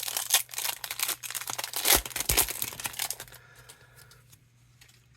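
Foil wrapper of an Upper Deck hockey card pack being torn open and crinkled, a rapid run of crackles that stops a little over three seconds in.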